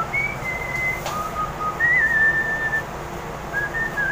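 A person whistling a tune: a string of clear held notes stepping up and down in pitch, with a single knock about a second in.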